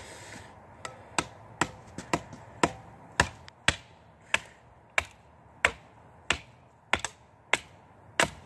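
Wooden batoning stick striking the spine of a cheap kitchen knife, driving the blade into a piece of wood: a steady run of sharp knocks, about one or two a second.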